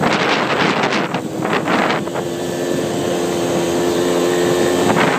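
ATV engine running while wind buffets the microphone in gusts; about two seconds in the buffeting eases and the engine carries on at a steady pitch.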